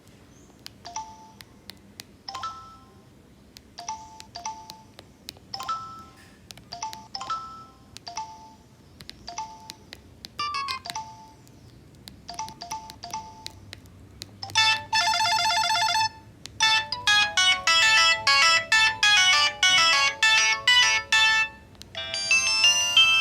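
Samsung SCH-a815 flip phone playing its ringtones one after another through its small speaker: first short two- and three-note chimes repeating about every second and a half, then a fast warbling trill about 14 seconds in, then louder quick polyphonic melodies.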